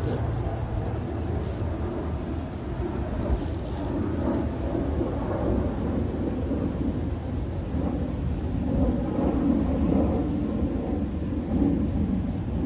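Steady low rumble of outdoor background noise, swelling slightly in the second half, with a few short faint clicks about three to four seconds in.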